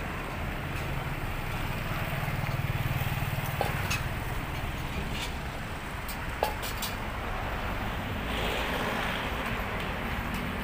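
A steady, dull rumble of distant engines, with a low hum under it, and a couple of brief ticks around the middle.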